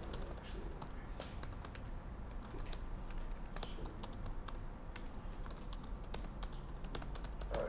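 Typing on a computer keyboard: a faint, irregular run of key clicks.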